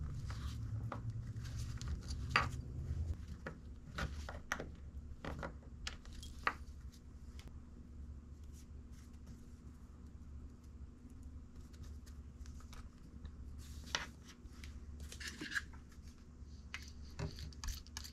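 Small clicks, ticks and scrapes of a pointed tool and a plastic zip tie working on a small steel ball bearing, prying at its shield and scooping grease from among the balls, over a low steady hum.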